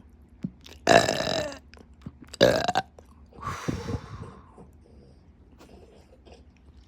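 A person burping: two loud, pitched belches about a second and two and a half seconds in, then a softer, breathier one about three and a half seconds in.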